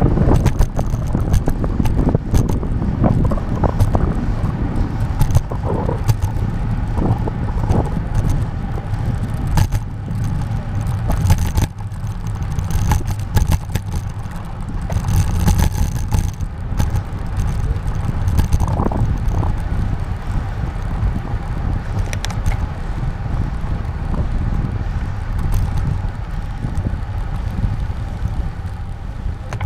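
Bicycle in motion, heard from a handlebar-mounted camera: a steady rumble of wind on the microphone and tyres on the road, with scattered short rattles and knocks from the bike.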